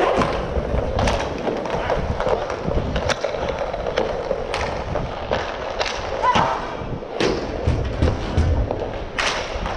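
Inline skate wheels rolling and clattering on plastic sport-court tiles, with a string of sharp clacks from hockey sticks and puck about every second.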